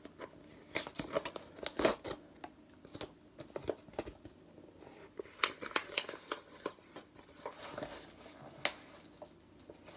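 Paper packaging being handled and opened by hand: irregular rustling, crinkling and tearing of paper, with a few sharper crackles, the loudest about two seconds in.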